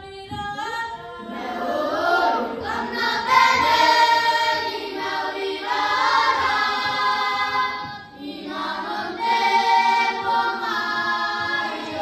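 A group of children singing together without instruments, in long phrases with a brief break about eight seconds in.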